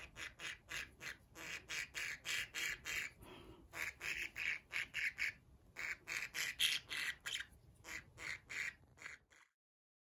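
A budgerigar calling over and over while restrained in the hand for nail clipping: a rapid run of short calls, about three a second, that cuts off abruptly near the end.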